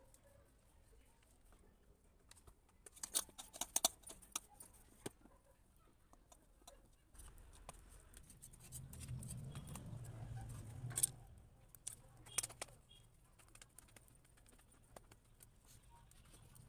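Faint soft pats and small sharp clicks of hands working bajra dough into a roti and feeding dry sticks into a wood fire in a clay chulha, with glass bangles on the wrist. A cluster of taps comes about 3 to 4 seconds in, and a low rumble swells for a few seconds around the middle.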